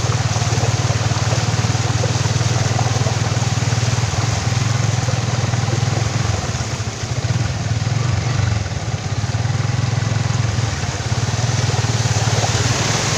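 Motorcycle engine running steadily while riding through shallow floodwater, with the hiss and splash of water thrown up by the wheels. The sound drops briefly about seven seconds in and again near nine.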